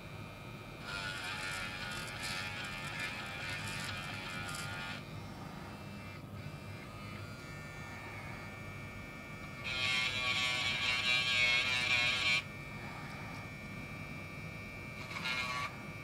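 Small handheld electric rotary tool with a pointed bit running with a steady high whine, grinding away black plastic from a diecast car's base in three spells: about a second in until about 5 s, again from about 10 to 12 s, and once more near the end.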